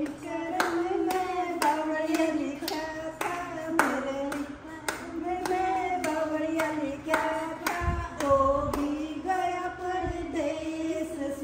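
A song sung by a voice, with hand claps keeping a steady beat of about two claps a second.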